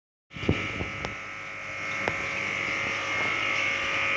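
An aquarium humming loudly: a steady, high buzz made of several fixed tones, swelling a little about two and a half seconds in. A few short knocks come in the first two seconds.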